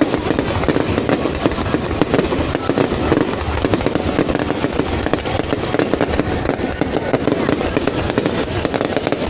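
Fireworks going off in a dense, continuous crackle of many rapid pops with no pause.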